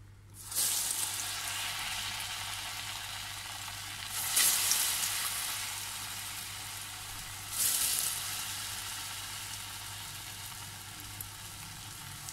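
Gram-flour-battered arvi (taro root) pieces dropped one at a time into hot oil in a wok. Each drop sets off a fresh burst of sizzling that settles into steady frying: the first about half a second in, then two more about four and seven and a half seconds in.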